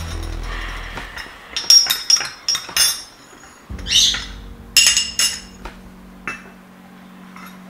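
A spoon clinks against a ceramic cup, a run of sharp ringing clinks. About four seconds in there is a short slurp from the cup, then more clinks. A low steady hum comes in just before the slurp.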